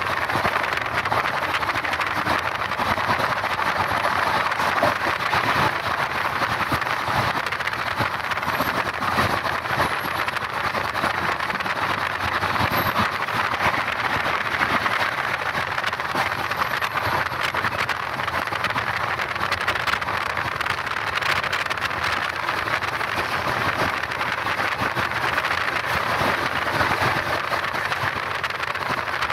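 Double-decker AC express train running at full speed, a steady loud rush of wheels rolling on the rails and air streaming past, heard through an open carriage door.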